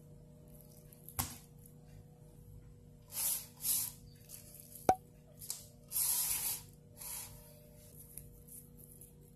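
Wet, squishy handling of a boiled beef tongue in a stainless steel bowl: a few short rubbing, squelching bursts of noise and one sharp click a little after the middle, over a faint steady hum.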